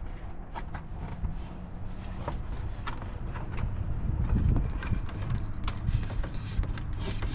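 Hands working a power cable behind plastic car interior trim: scattered small clicks, scrapes and rustles of cord and plastic, over a low rumble.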